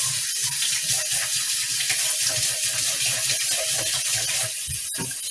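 Water running steadily from a kitchen faucet into a sink, with a brief break about five seconds in.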